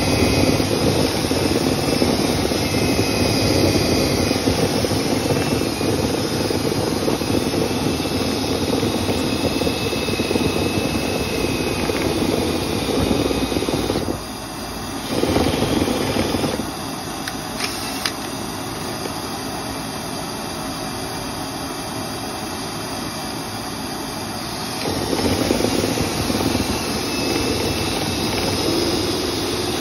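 Loud steady rushing of the motor of dryer-vent cleaning equipment running, with a faint high squeal over it. The level shifts abruptly several times: a drop about 14 seconds in, a steadier quieter stretch from about 16 to 25 seconds, then louder again.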